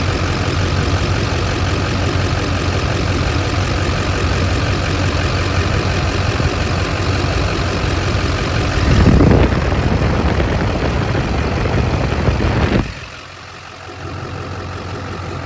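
LB7 Duramax 6.6-litre V8 turbodiesel idling steadily, its mechanical fan running. It gets louder for about a second around nine seconds in, then the sound drops off suddenly near the thirteen-second mark to a quieter steady hum.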